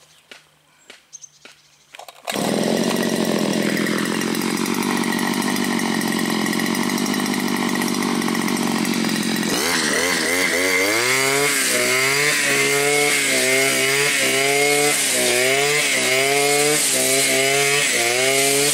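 Two-stroke engine of a Blade Alpin 520 petrol brushcutter. It comes in suddenly about two seconds in and runs steadily at low speed. About ten seconds in it is opened up to high revs to cut tall grass, its pitch dipping and recovering about once a second as the cutting head swings through the grass.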